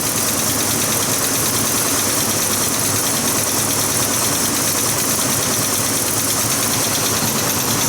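1963 Pontiac Bonneville's V8 idling steadily just after a cold start, with a lifter ticking: the owner calls it a bad lifter.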